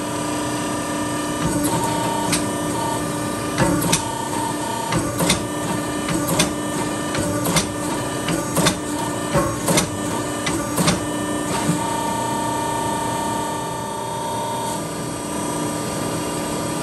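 Forging press running with a steady hum while a punch is pressed into a red-hot mild-steel billet to punch an axe eye. Sharp metal clanks come about once or twice a second through the middle, then stop near the end and leave only the hum.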